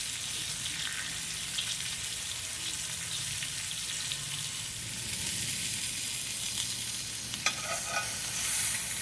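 Beef neck bones frying in a pan: a steady sizzle, with a short sharp clink about three-quarters of the way through.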